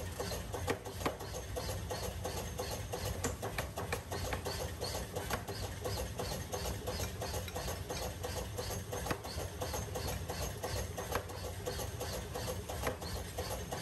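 Mechanical power hammer running and striking a red-hot steel hammer blank on its die in a quick, even rhythm of about three blows a second, over the low hum of the machine's drive.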